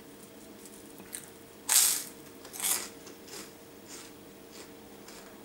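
A person chewing dry, unbuttered toast, with crunching right up at the microphone: two loud crunches about two seconds in, then fainter ones about every half second to second. A faint steady hum runs underneath.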